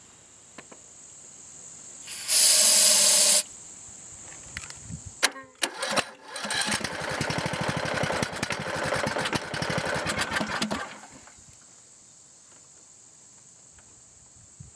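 Rebuilt Briggs & Stratton 18.5 HP Intek OHV engine being cranked over by its electric starter for about four seconds, then stopping without running on. A loud hiss lasting about a second comes a couple of seconds in, before the cranking.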